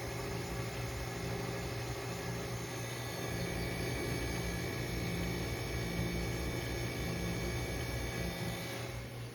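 Vintage Electrohome dehumidifier running: its Matsushita reciprocating compressor hums steadily under the whir of its fan motor.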